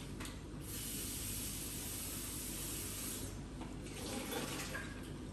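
Kitchen tap running into a sink for about two and a half seconds, turned on under a second in and shut off abruptly.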